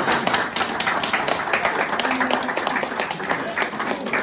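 A small group applauding: many hands clapping at once, dense and irregular, without a break.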